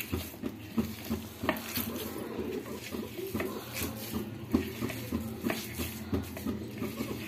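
A hand mixing and squeezing a sticky dough of flour, grated coconut and sesame powder on a steel plate: uneven rubbing and squishing with scattered light clicks.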